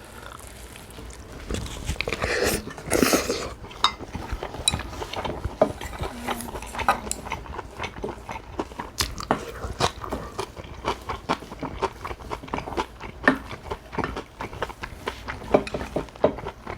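Mouth sounds of eating cockle bibimbap: chewing and biting with many small sharp clicks. There is a louder rustling, scraping burst about two to three seconds in.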